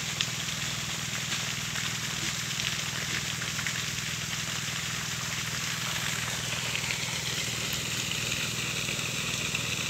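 Steady outdoor background hiss at an even level, with a low steady hum beneath it and no distinct events.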